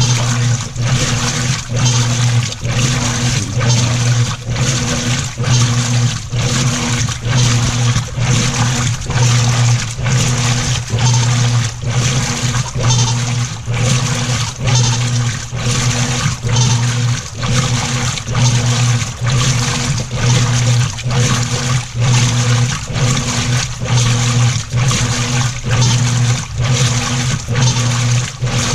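Whirlpool commercial top-load washer agitating, water sloshing over a steady motor hum that pulses regularly about one and a half times a second. This is the weird agitator noise under investigation.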